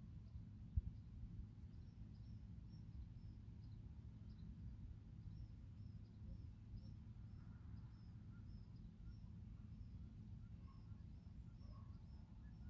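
A small bird chirping over and over, short high chirps about twice a second, over a faint low rumble. One sharp bump about a second in.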